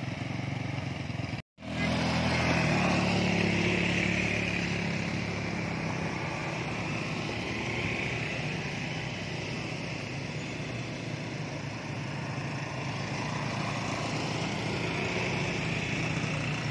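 Several ATV quad-bike engines running steadily, with the sound cutting out for a moment about one and a half seconds in and coming back loudest just after.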